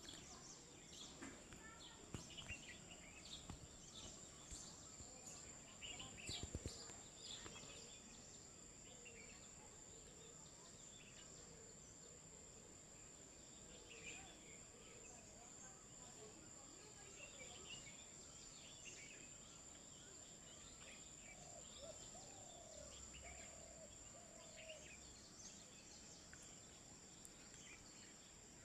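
Faint outdoor ambience: scattered bird chirps over a steady high-pitched whine, with a few soft clicks in the first several seconds.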